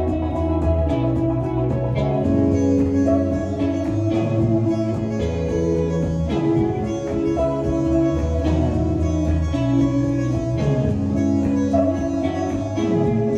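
Live band music: an electric guitar and a hollow-body guitar playing together over sustained low bass notes.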